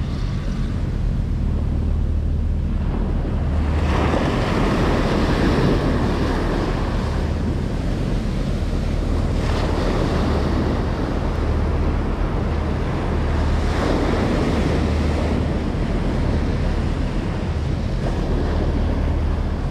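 Ocean surf breaking and washing up a sandy beach, surging louder every few seconds as each wave comes in, with wind buffeting the microphone.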